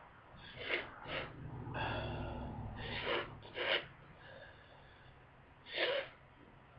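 A person with a heavy head cold sniffing and snorting through a congested nose. There are several short sharp sniffs, a longer pitched nasal sound about two seconds in, and one more sniff near the end.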